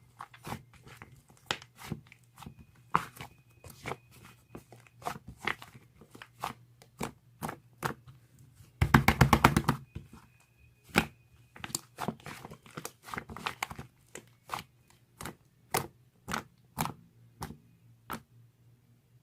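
Fluffy slime being pressed and stretched by hand, its trapped air popping in sharp separate clicks and snaps, with a dense burst of rapid crackling about nine seconds in.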